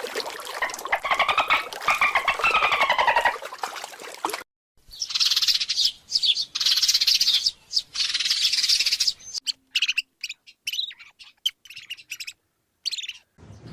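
Birds calling in three short clips, one after another: first calls that rise and fall in pitch, then harsh, high chirping, then a scatter of short, sharp chirps.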